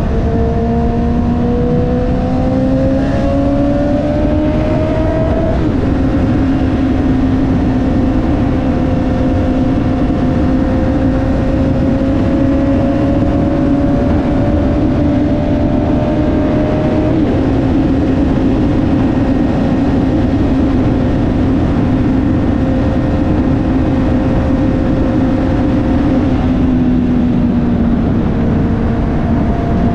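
2021 Honda CB650R's inline-four engine, through an Akrapovic titanium full-system exhaust with the dB killer removed, running at highway speed. Its note climbs for the first five seconds, drops, then holds nearly steady and sinks slightly near the end, over constant wind and road noise.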